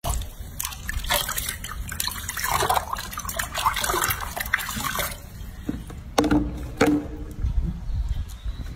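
Water splashing and sloshing in a sink as hands scrub a wet baby monkey, busiest in the first five seconds, with a couple of sharp knocks about six and seven seconds in.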